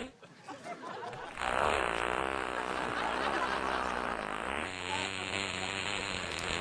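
Many people in an assembly hall laughing and murmuring together, setting in about a second and a half in and going on steadily.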